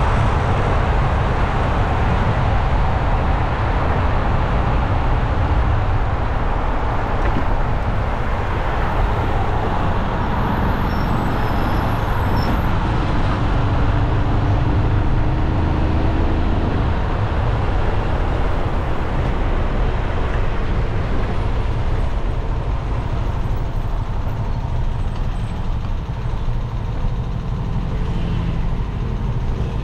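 Steady city road traffic: a continuous rush of tyres and engines on a busy street.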